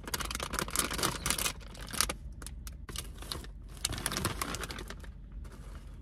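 Plastic snack packaging crinkling and rustling as it is handled: dense crackling for about two seconds, then shorter bursts around three and four seconds in.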